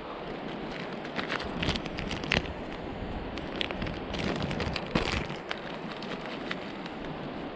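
Steady rush of river water, with scattered crackling clicks from handling close to the microphone, bunched about a second in and again around four to five seconds.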